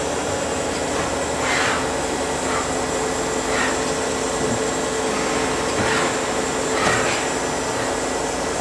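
Daewoo Puma 200LMSC CNC turning center running with a steady hum and a few held tones, while its B axis (the sub-spindle slide) is jogged, giving several short swishing sounds about a second apart.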